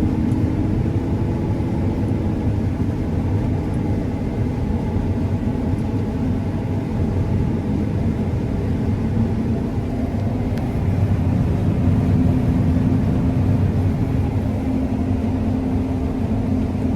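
John Deere S780 combine running steadily while harvesting wheat: a continuous low mechanical drone whose pitch shifts slightly about a second in and again partway through.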